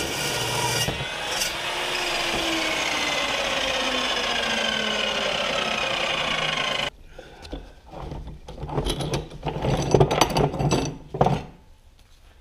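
Evolution chop saw finishing its cut through a strip of steel. Its blade then spins down with a slowly falling whine, until the sound cuts off suddenly about seven seconds in. Irregular knocks and scraping follow.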